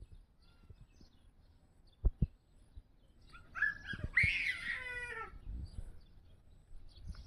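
A kitten meows once: a drawn-out call of about a second and a half that falls a little in pitch, about three and a half seconds in. Two sharp knocks come just before it.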